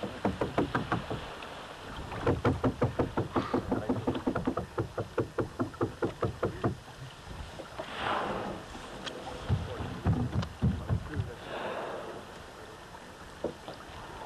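A boat's engine chugging in a fast, even beat of about five pulses a second, falling away a little before the middle. Two brief rushes of splashing water follow, with low rumbles of wind on the microphone between them.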